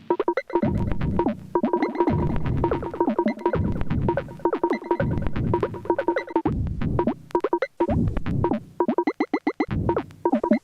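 Erica Synths Perkons HD-01 four-voice analog drum synthesizer playing a pattern: pitched percussive hits and low drum sounds in a steady rhythm, with a quick roll of repeated hits near the end.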